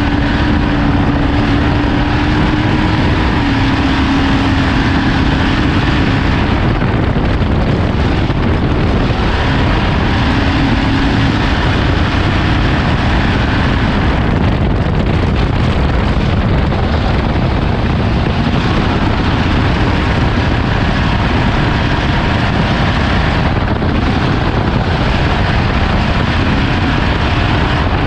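Off-road race vehicle running flat out at speed, seen from onboard: a loud, steady engine and drivetrain noise whose pitch shifts now and then, mixed with heavy wind rush on the microphone.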